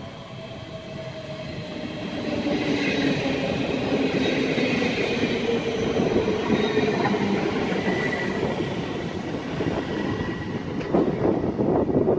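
NS ICMm Koploper electric multiple unit arriving and running past while slowing. Its rumble grows louder over the first two seconds, with thin squealing tones from the wheels and brakes. Near the end, gusts of wind buffet the microphone.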